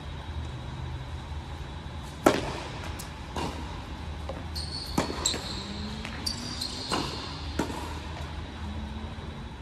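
A tennis rally on an indoor hard court: racket strikes and ball bounces land as a series of sharp pops, the loudest about two seconds in. Short high squeaks come in the middle, over a steady low hum from the hall.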